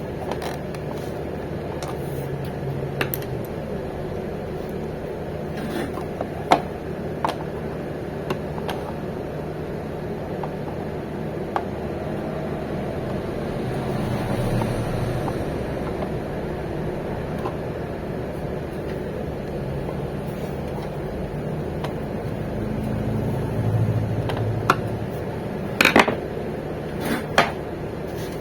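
A steady low mechanical hum with scattered small clicks and knocks, and a few louder sharp knocks close together near the end.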